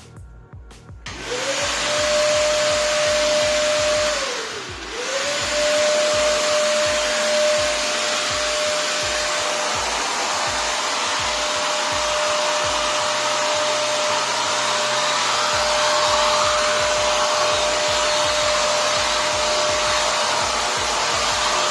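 Prestige Typhoon 06 wet-and-dry vacuum cleaner switched on: its motor spins up with a rising whine about a second in. It winds down briefly around four seconds in, then climbs back and runs steadily with a loud whine and rushing air through the hose.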